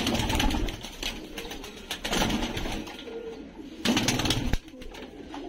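Domestic fancy pigeons cooing in a loft, with three short bursts of rustling noise.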